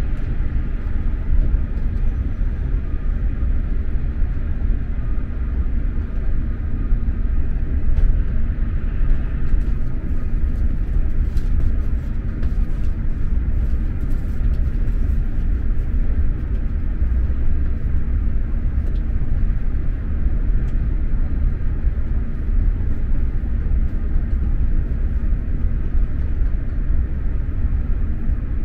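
Steady low rumble of an SJ X2000 electric high-speed train running at speed, heard from inside a passenger car, with a few faint clicks from the running gear about a third of the way through.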